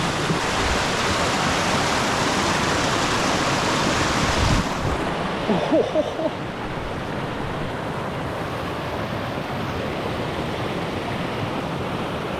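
A stream rushing over rocks, a steady noise that drops somewhat about four and a half seconds in.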